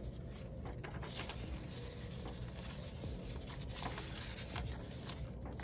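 Paper bills and a budget envelope being handled: faint rustling and soft scattered taps over a steady low hum.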